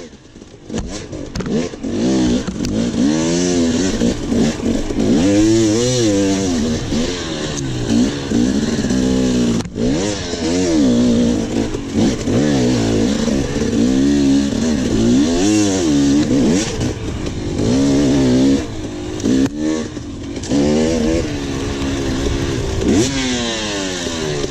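Enduro dirt bike engine revving hard and easing off again and again, its pitch climbing and falling many times as the rider accelerates, shifts and backs off through the test. The engine dips briefly right at the start before pulling up again.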